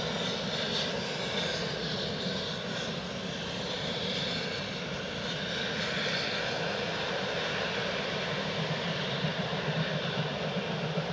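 Steam-hauled train heard from a distance, a steady rumble and roar with no distinct chuffs.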